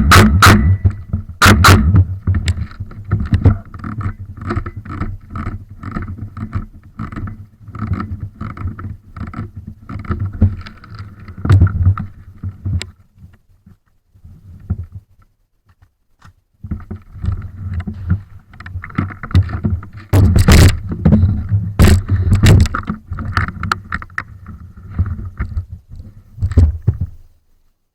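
Rumbling handling and rubbing noise on a worn camera's microphone, with repeated rustles and knocks. A few loud sharp knocks come about three-quarters of the way through. It pauses briefly past the middle and cuts off just before the end.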